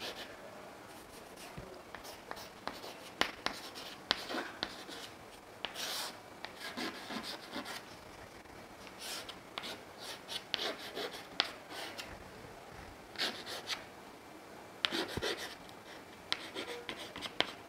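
Chalk writing on a chalkboard: irregular scratches and taps as an equation's letters and symbols are drawn, with short pauses between strokes.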